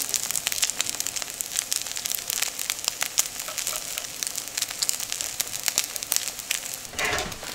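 Rice-and-egg galette frying in olive oil in a nonstick pan over medium heat: a steady sizzle with many small crackling pops, while a silicone spatula pushes and shapes it into a round.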